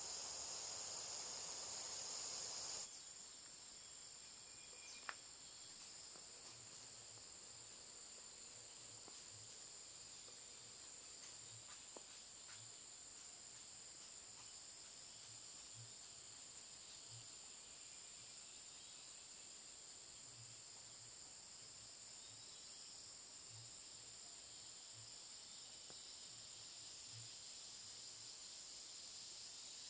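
Steady high-pitched chorus of insects in forest undergrowth, faint throughout. A louder hiss sits under it for the first three seconds and cuts off suddenly, and faint soft low thuds come irregularly through the rest.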